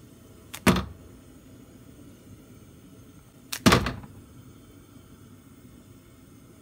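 Two short, sharp knocks about three seconds apart, each a light click followed at once by a louder knock, over faint room hum.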